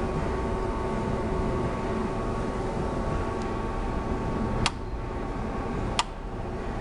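Handbag tipping machine running with a steady electric hum. Near the end come two sharp clicks a little over a second apart, and the hum drops slightly after the first.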